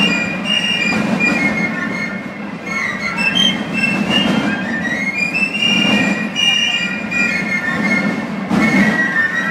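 Basel carnival fife-and-drum music: a group of piccolos playing a high melody together over Basel snare drums.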